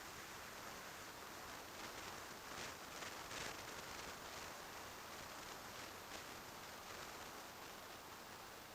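Faint, steady rush of wind and road noise picked up by a camera on a moving motorcycle, with no engine note standing out. A few brief louder gusts come about a third of the way in.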